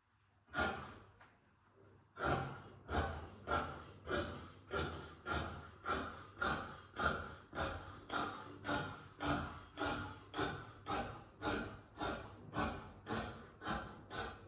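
Scissors cutting through cloth: one snip, a short pause, then a steady run of snips at about two to three a second.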